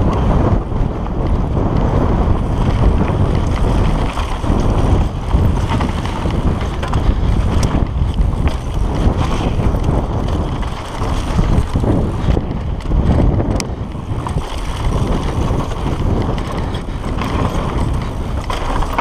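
Wind buffeting an action camera's microphone on a downhill mountain bike run, over the rumble of knobby tyres and the rattle of the bike on a dry dirt trail, with a couple of sharp clicks.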